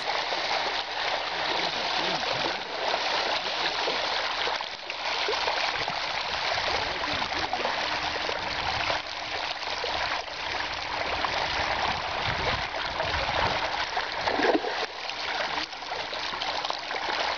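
A shoal of dorados feeding at the surface of a river, splashing without pause in the shallows over the sound of the flowing water.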